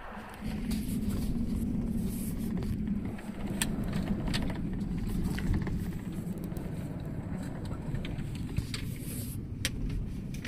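Bus running along a road, heard from inside the cabin: a steady low engine and road rumble that grows louder about half a second in, with a few light clicks and rattles.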